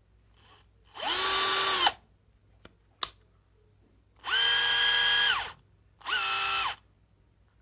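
Parkside PBSA 12 D4 12 V cordless drill run with no load in three short bursts, each spinning up, holding a steady whine and winding down as the trigger is released. The first burst is the loudest and the pitch differs a little from burst to burst. A single click falls between the first two.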